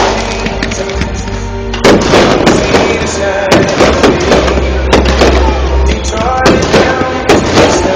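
Fireworks display: firework shells bursting in a rapid run of bangs and crackles, coming several a second from about two seconds in, over loud music.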